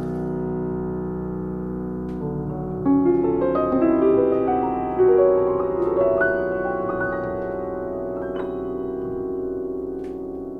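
Background music: piano notes held and overlapping, with new notes entering one after another, easing off near the end.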